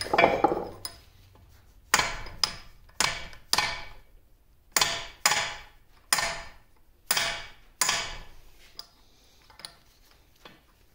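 A hammer strikes a pin punch again and again, sharp metal blows that ring briefly. The blows come mostly in pairs about half a second apart, and the last two are lighter. This is a pin being driven out of the half-nut handle hub on a lathe apron.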